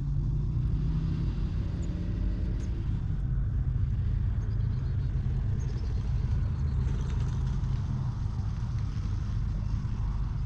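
An engine running steadily close by, a low even rumble with a hum in it that fades over the first few seconds.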